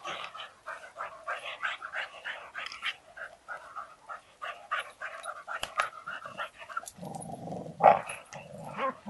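Staffordshire bull terriers growling and making short excited noises as they tug at a hanging rope toy; about seven seconds in a deeper growl joins, with one short loud outburst just after.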